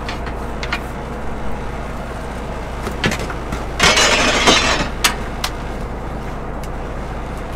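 Fishing boat's engine and hydraulic line hauler running steadily while a longline is hauled, with a few sharp clicks and knocks and a brief loud rush of noise about four seconds in.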